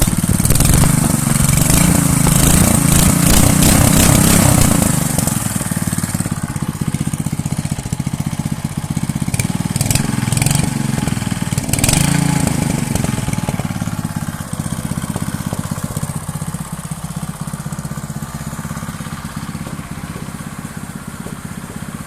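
Small motor-scooter engine running after a repair: revved for the first few seconds, then settling, revved briefly again about halfway, then idling and gradually getting quieter.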